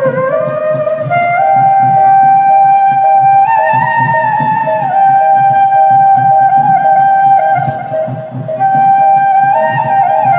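A flute-like melody of held notes that step up and glide down, over a steady tone that pulses rapidly beneath it.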